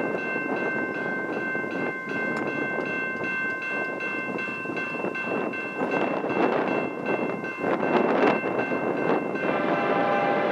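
A railroad grade-crossing bell rings steadily over the rumble of an approaching train. About nine and a half seconds in, a locomotive horn chord joins it.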